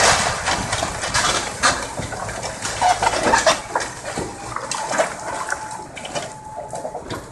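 Irregular crashes and clattering of cinder-block masonry breaking away and tumbling onto a rubble pile as a hydraulic excavator tears into the wall of the house, with a few brief squeals in the middle.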